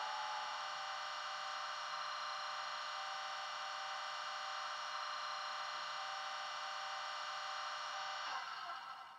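Factory-fitted DCC sound decoder in a Bachmann Class 47 model locomotive, playing a steady diesel idle through its small speaker. It has many even tones and no bass, and it dies away near the end.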